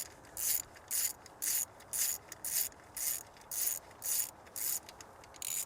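Ratchet wrench with a 10 mm socket being worked back and forth to back out the ignition coil's hold-down bolt. It gives a steady run of short rasping ratchet strokes, about two a second.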